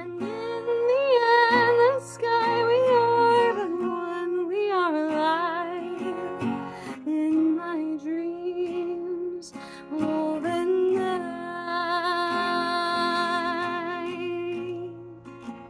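A woman's voice singing a wordless melody over a capoed acoustic guitar. Her voice pauses for a few seconds about halfway through, then comes back with long held notes with vibrato.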